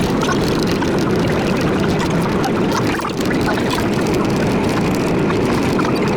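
Century-old IRT Lo-V subway train running through a tunnel: a loud, steady rumble of wheels on rail with scattered faint clicks.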